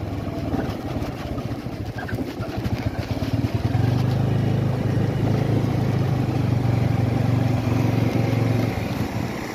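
Motor scooter's small engine running as it rides along, a steady hum that grows louder about a third of the way in and drops back near the end.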